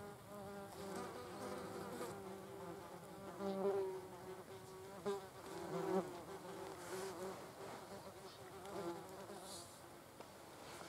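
German wasps buzzing in flight close by, a wingbeat drone that swells and fades as they come and go, with a few soft clicks.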